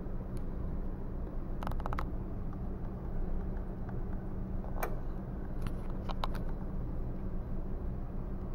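A steady low hum, with a quick cluster of small sharp clicks about two seconds in and a few more single clicks a few seconds later.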